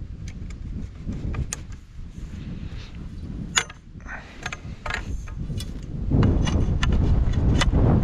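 Aluminium pole sections clinking and knocking as they are handled and fitted together, a string of sharp metallic clicks. From about six seconds in, wind buffets the microphone with a loud low rumble.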